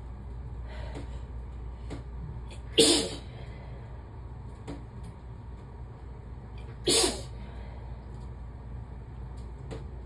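A person sneezing twice, about four seconds apart, each sneeze short and sudden.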